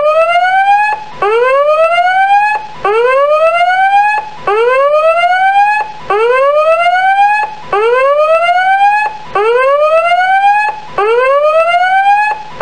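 Countdown timer's electronic end alarm: a whooping siren tone that rises in pitch over about a second and a half, cuts off briefly and starts again, about eight times over.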